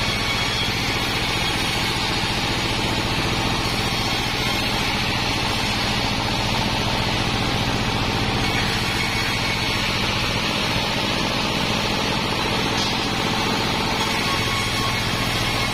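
Sawmill band saw ripping wadang timber beams, driven by a diesel engine running steadily, with a dense, even cutting noise over a rapid low engine pulse.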